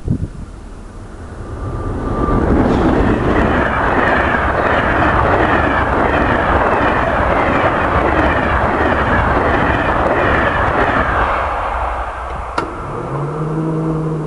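SNCF BB 7200-class electric locomotive and its passenger coaches passing at speed: a rush of wheel and rail noise that builds over the first couple of seconds, holds loud for several seconds, then eases off near the end.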